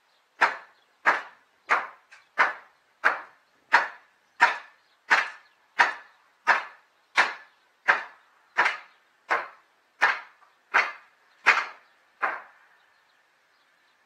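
Hammer blows on old wooden roof boards: about eighteen sharp, evenly spaced strikes at a bit under two a second, then they stop near the end.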